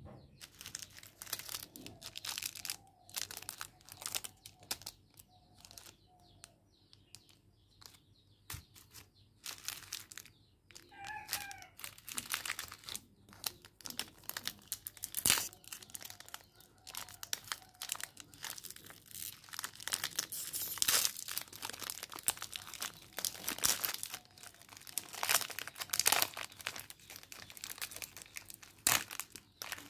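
Plastic wafer-bar wrappers crinkling as they are handled and torn open by hand: an irregular run of crackles, sparse at first and busiest in the second half.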